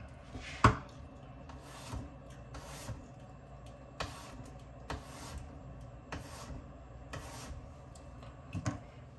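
Chef's knife slicing an apple into thin slices on a wooden cutting board: a series of irregular short swishing strokes and soft taps of the blade on the board, with one sharper knock near the start.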